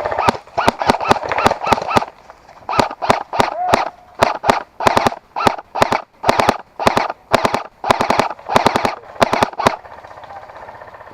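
Airsoft guns firing in quick strings of sharp shots, several a second, with short pauses between the strings; the firing stops near the end.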